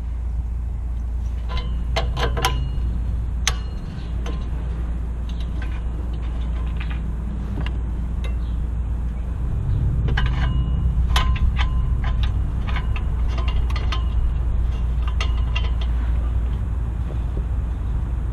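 Metal parts and hand tools clinking and tapping against the car's exhaust downpipe as an O2 sensor spacer is threaded on: scattered short ringing metallic taps, in clusters near the start and again in the second half, over a steady low rumble.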